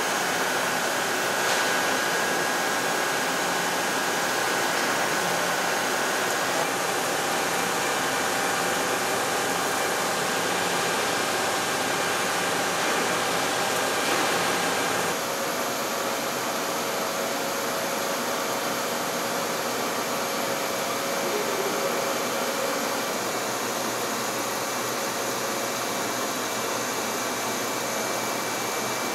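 Hwacheon T-REX 210 CNC lathe running, a steady hiss and whir with faint steady whining tones as it finish-turns a hardened-steel guide post. About halfway through the sound changes abruptly to a slightly different steady hum as it machines a steel wheel mold.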